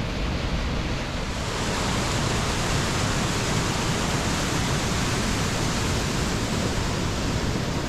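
Waterfall rushing steadily, a dense, even roar of falling water that grows fuller about a second and a half in.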